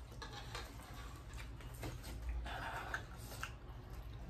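Faint eating sounds: light clicks of a fork in a bowl of noodles and chewing, with a brief hiss about two seconds in, over a low steady hum.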